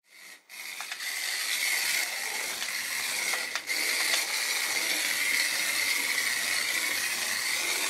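Small geared electric motor of a battery-powered toy mouse whirring steadily, with a few light clicks.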